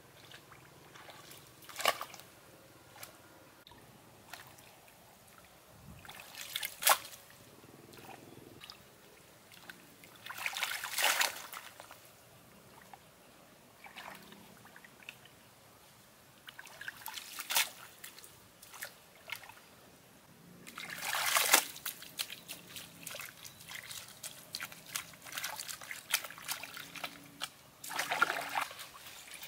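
Hands splashing and sloshing in shallow muddy stream water while groping for fish: separate splashes every few seconds, the longest a little over two-thirds of the way through, with faint trickling between.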